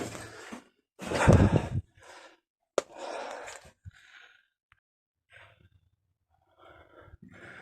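A heavy sigh close to the microphone, followed by a sharp click and scattered rustling handling noise.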